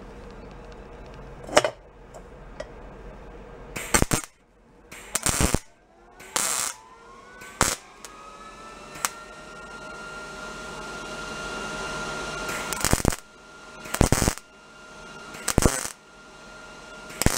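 MIG welder striking a series of short arc bursts, about nine crackling tacks each under a second long with pauses between, welding up a cracked steel headlight bucket on chrome that was not sandblasted. Between the bursts a fainter whine rises in pitch and then holds steady.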